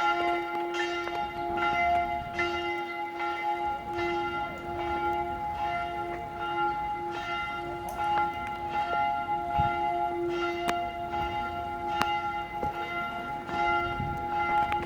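The church bells of the Predigerkirche in Basel ringing in a full peal. Several bells are swinging and striking over and over, about once a second, and their long ringing tones overlap.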